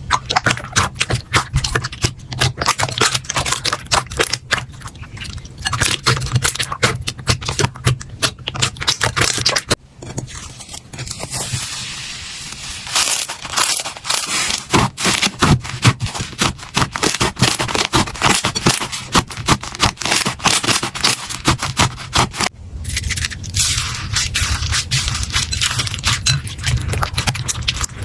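Slime being squeezed, poked and stretched by hand, making a dense run of quick sticky clicks, crackles and pops. The sound changes character twice, about ten and twenty-two seconds in, as one slime gives way to another.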